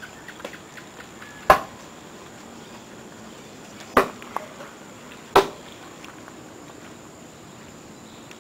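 Three sharp chopping blows into a wooden log: one about a second and a half in, then two more a little over two seconds and about a second and a half apart.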